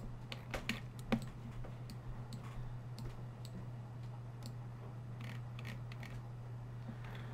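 Irregular light clicks of a computer mouse and keyboard, roughly every half second, over a steady low hum.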